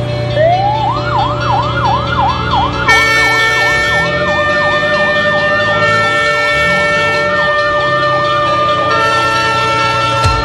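Emergency vehicle siren starting about half a second in with a rising wail, then switching to a fast repeated yelp, about three sweeps a second. Background music with held chords comes in over it about three seconds in.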